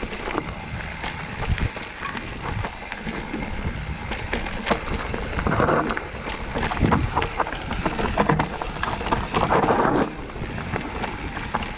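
Mountain bike descending a rocky, rooty trail: tyres rolling over the ground with many short clattering knocks from the bike, and wind rushing over the microphone. It gets louder about halfway through and again near the end.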